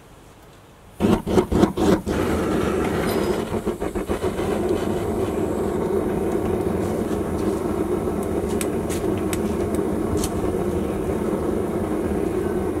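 Small metal-melting foundry's burner lighting: about a second in it catches with a quick run of sputtering pops, then settles into a loud, steady rushing flame as the furnace heats up to melt aluminium.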